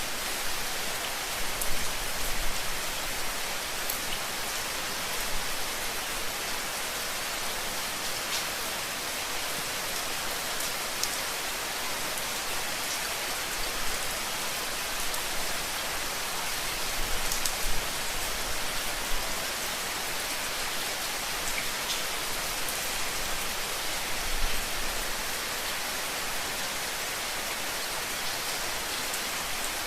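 Steady, heavy rain falling on a surface, a dense even hiss with scattered individual drop taps and a few soft low thumps.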